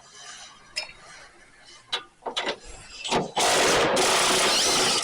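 A few sharp tool clicks and knocks, then, from just past halfway, a loud air tool run in one long continuous burst that overloads the recording and stops sharply.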